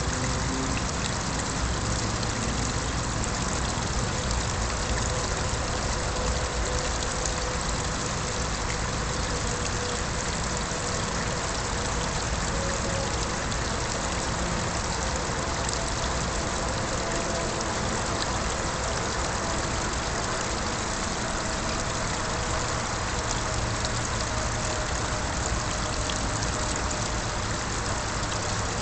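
Small garden-pond waterfall splashing steadily into the pond, with a low rumble underneath.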